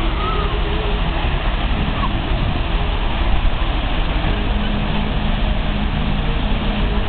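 Steady rushing spray of the fountain at the base of the Universal globe, with a continuous low rumble.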